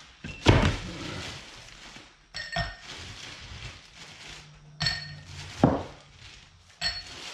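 A plastic bag being handled and shaken, with several dull thumps and three short, ringing clinks.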